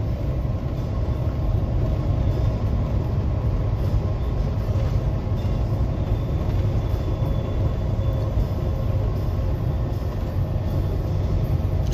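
Steady low rumble of a semi-truck's engine and tyres cruising down the highway, heard from inside the cab, with a faint steady hum above it.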